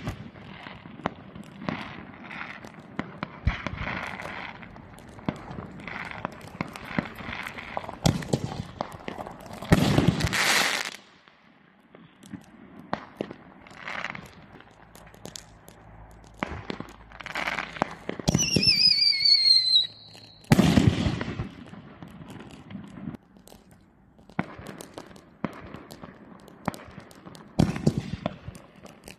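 Aerial fireworks launching and bursting: loud bursts about ten and twenty seconds in and again at the very end, with crackling between them. A falling whistle comes just before the second burst.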